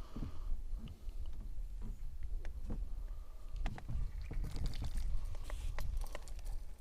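Scattered light knocks and clicks of handling in a small fishing boat, over a low steady rumble.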